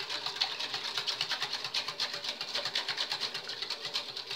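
Wire whisk beating liquid gelatin in a glass bowl, the tines clicking and scraping against the glass in a fast, even rhythm of about eight strokes a second.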